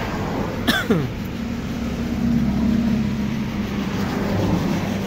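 Motor vehicle engine running in passing road traffic, swelling louder for a second or so in the middle, with a short falling vocal sound about a second in.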